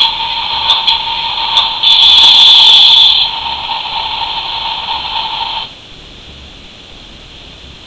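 Toy excavator's electronic sound effects playing through its small, tinny speaker. There is a louder, harsher stretch about two seconds in, and the sound cuts off abruptly a little over five seconds in, leaving faint hiss.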